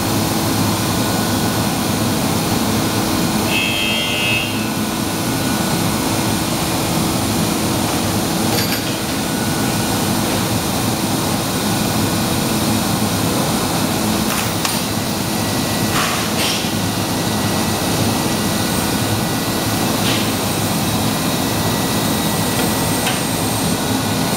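Blown film machine's winder running, a steady industrial machine drone with constant hum tones. A brief high tone comes about three and a half seconds in, and a few faint clicks follow later.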